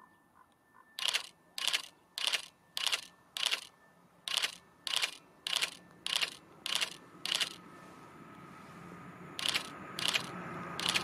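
A run of sharp metallic clangs, about two a second, that breaks off briefly and then starts again. In the last few seconds the rumble of an approaching train builds under them.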